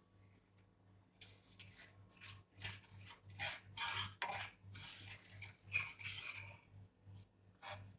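Wooden spoon stirring and scraping around a pan of milk and vermicelli, a run of irregular rasping strokes about twice a second starting about a second in, as sugar is stirred in.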